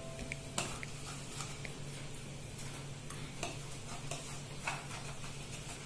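Metal spoon stirring thick idli and dosa batter in a stainless steel bowl, with a few light clinks and scrapes of the spoon against the bowl. A low steady hum runs underneath.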